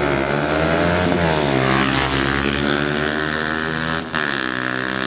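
Suzuki GSX250R motorcycle engine and exhaust accelerating, its pitch climbing through the revs, with a short drop and break about four seconds in.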